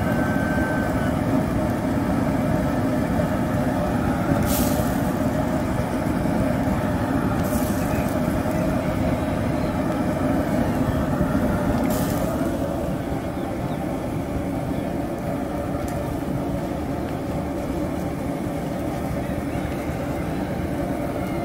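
Outdoor gas burner running under a wok of water at a hard rolling boil, a steady low roar mixed with bubbling, with a few brief hisses.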